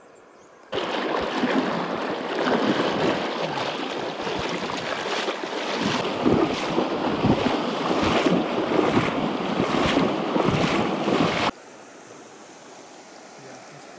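Wading through a shallow, fast-flowing river: rushing water with repeated splashes of legs in waders pushing through the current, about one to two a second. It cuts off suddenly near the end, leaving a much quieter, steady flow of water.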